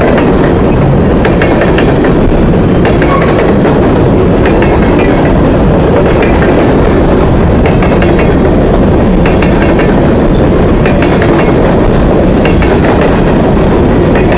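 Covered hopper cars of a long CSX grain train rolling past close by: a loud, steady rumble with the clickety-clack of wheels over the rail joints.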